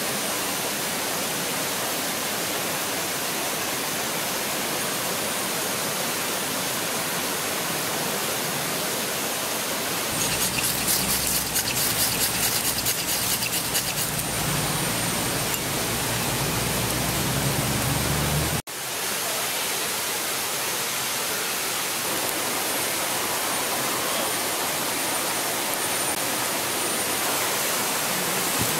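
Steady rushing of a river. About ten seconds in, a quick run of scraping strikes on a ferro rod lasts a few seconds, with a low rumble underneath. The sound cuts off abruptly for a moment a little past halfway.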